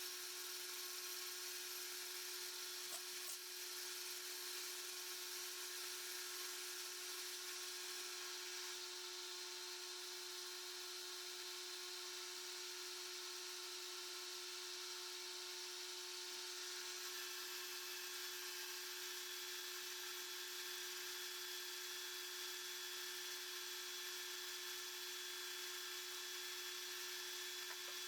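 Metal lathe running steadily while turning a half-inch steel plate: a constant motor tone under a high hiss from the cut, its upper tones shifting slightly about halfway through.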